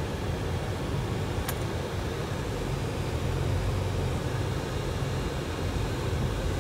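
Steady low rumble of a car heard from inside the cabin while it drives slowly through a parking lot: engine and tyre noise.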